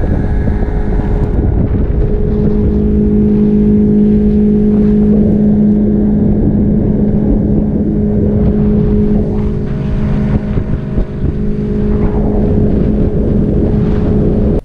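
Outboard motor running steadily at cruising speed, driving a small open boat, with a constant, unchanging pitch. Its level wavers a little a few seconds past the middle.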